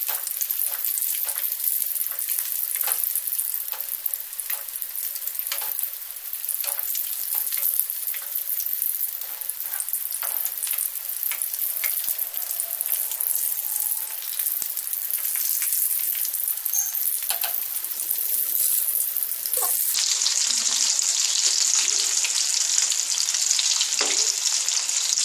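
Breadcrumb-coated egg chops deep-frying in hot oil: a steady sizzle full of small crackling pops, as hot oil is spooned over their tops.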